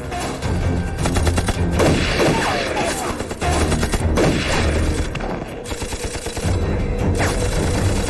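Film gunfight sound effects: a rapid, repeated exchange of gunshots, including pistol fire, with falling whistles of bullets passing, over a dramatic music score.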